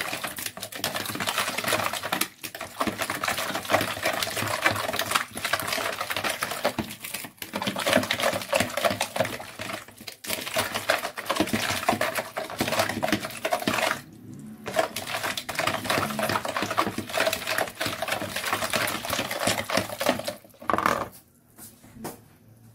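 Hand whisk beating a runny egg, sugar and oil mixture in a mixing bowl: fast clicking and scraping strokes against the bowl and a wet slosh, with a few short breaks, stopping near the end.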